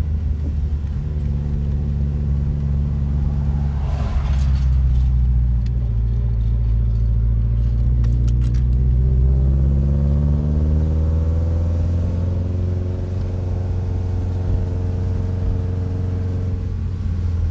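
Mitsubishi Lancer Evolution VIII's freshly built turbocharged 4G63 four-cylinder running on its break-in drive, heard from inside the cabin. A short noisy rush about four seconds in, then the engine note climbs steadily over a few seconds as the car accelerates, holds, and eases off near the end.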